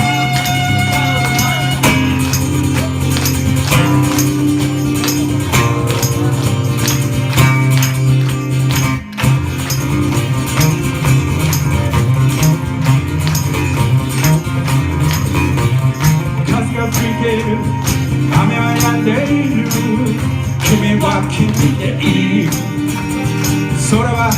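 Live band music: an instrumental passage with a steady beat and held notes, briefly dropping out for a moment about nine seconds in.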